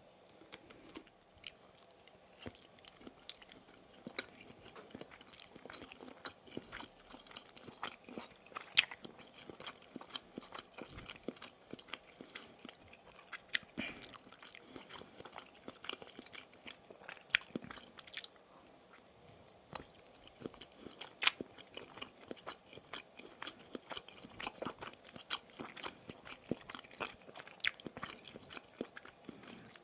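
Close-miked biting and chewing of Maxbong sausage sticks: irregular sharp, wet clicks and crunches, with a few louder bites scattered through.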